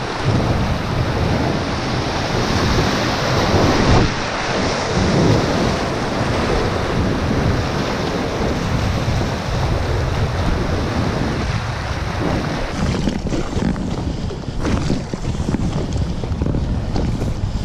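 Whitewater rapids rushing around an inflatable paddleboard, with wind on the microphone. About two-thirds of the way through the rush thins out and gusty wind buffeting on the microphone takes over as the river flattens.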